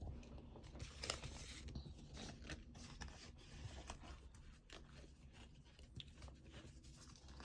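Faint handling noise of trading cards: scattered light scrapes and small clicks over a low room hum.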